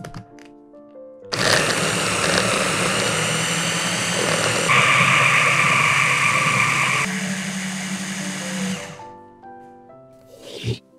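Electric hand blender with its chopper bowl attachment running for about eight seconds, whirring as it purées soft cheese and egg. Its tone shifts about halfway through and again later, then it winds down before the end.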